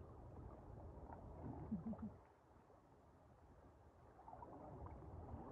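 Near silence: faint background hiss with a brief faint wavering sound about a second and a half in. After that it drops to complete silence for about two seconds.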